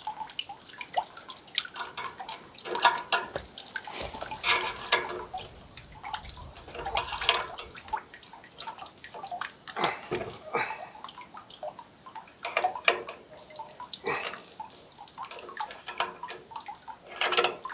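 Sap dripping and splashing in a sap tank, with irregular clicks and knocks scattered throughout.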